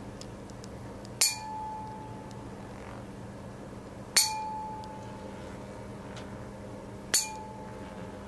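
Golden tuning fork of traditional Chinese ear cleaning struck three times, about three seconds apart. Each strike is a sharp clink followed by a clear tone that rings for about a second and fades.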